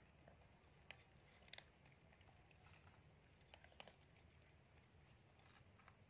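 Very faint sounds of cats eating from bowls: quiet chewing with a handful of short clicks scattered through.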